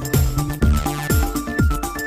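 Electronic background music with a steady four-on-the-floor beat: booming kick drums that drop in pitch, about two a second, under held synth notes.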